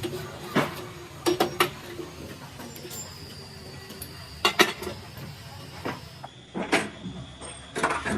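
Irregular sharp knocks and clatters of parts and tools being handled during a repair, with a cluster about a second in, a close pair at about four and a half seconds and more near the end, over a faint steady high whine.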